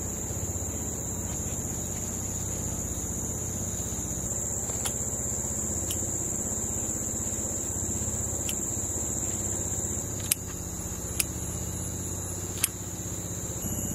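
Insects trilling steadily in a high band over a low hum. Near the end come three sharp snips of scissors cutting spinach stems at harvest.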